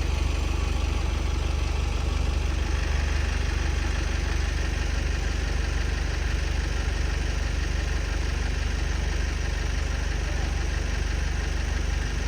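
Engine idling steadily: an even, low running hum with no changes in speed.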